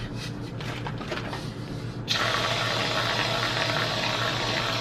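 Aerosol can of chocolate whipped topping spraying: a few faint clicks, then about two seconds in a steady, loud hiss as the topping is dispensed.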